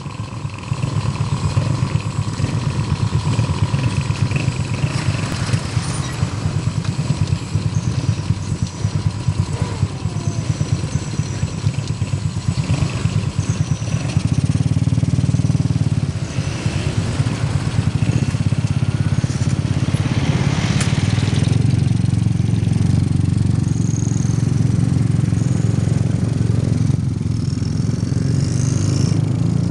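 Small motorcycle engines running, first idling with a fast, even throb, then from about halfway louder and steadier as the bikes get under way.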